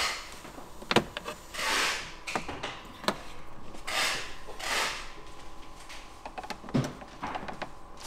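Plastic interior trim panel being pried off a VW Transporter's dash side with a plastic pry tool: a few sharp clicks as its hidden plastic clips let go, and several short scraping rasps of the panel against the trim around it.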